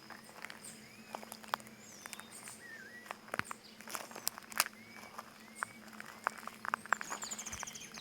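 Footsteps crunching on stony ground with sharp clicks throughout, while birds call in short whistled notes. A fast high trill comes near the end, all over a steady low hum.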